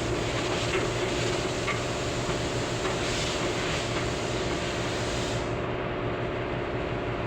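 Steady mechanical running noise with a constant hum and a few faint ticks. The high hiss drops away sharply about five and a half seconds in.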